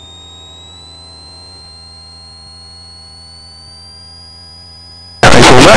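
Light aircraft's cockpit intercom audio between transmissions: a quiet steady hum with a thin high whine that rises slowly in pitch for about four seconds as engine power is added, then holds. A loud burst of intercom sound cuts in near the end.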